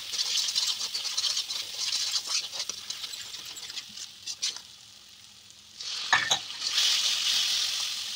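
Besan masala sizzling in oil in a kadhai while a steel spoon stirs and scrapes through it. The sizzle drops back around the middle, there is a sharp clink about six seconds in, and then the sizzle rises again.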